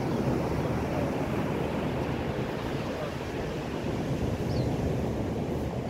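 Steady rush of ocean surf and wind on an open beach, an even wash of noise with no distinct events.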